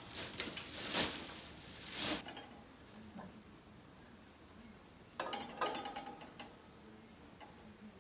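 About two seconds of rustling handling noise. Then, about five seconds in, a few metallic clinks with a short ring as the steel clutch pressure plate is set down over the clutch disc and flywheel.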